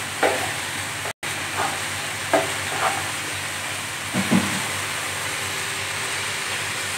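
Macaroni boiling hard in a steel pot of water, a steady bubbling hiss, with a few light knocks of a ladle stirring against the pot in the first three seconds.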